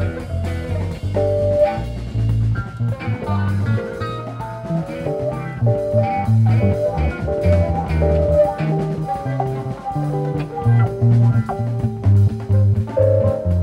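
Live rock band playing an instrumental jam: electric guitars picking melodic lines over a running bass guitar and drums, from a soundboard recording.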